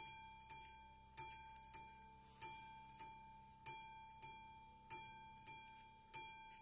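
Classic mechanical bell of an AŽD 71 level-crossing warning signal ringing for an approaching train: a steady run of strikes a little under two a second, alternating louder and softer, each leaving a ringing tone that fades before the next.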